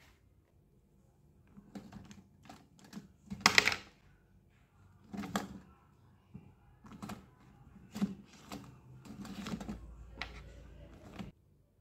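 Irregular clicks, taps and knocks of small objects being handled, about a dozen, the loudest a few seconds in; the sound cuts off suddenly near the end.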